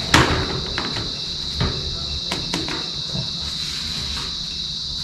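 Plastic pet carrier lid pressed shut with a sharp snap near the start, followed by a few lighter plastic knocks. A steady high insect chirring, like crickets, runs underneath throughout.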